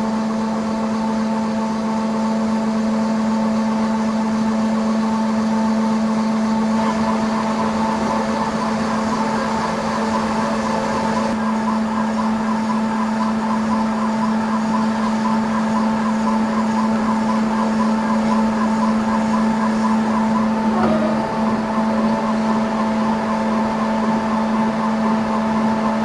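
Plus Mill S5 dental milling machine's spindle running as a small bur cuts a zirconia disc: a steady hum of constant pitch with a fluttering whir above it.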